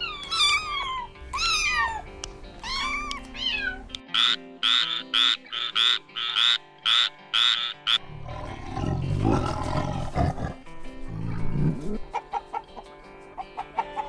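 A run of animal sounds over background music: a cat meowing several times, then a string of short, evenly spaced high calls about two or three a second, then a tiger's low growls and roar, and hens clucking near the end.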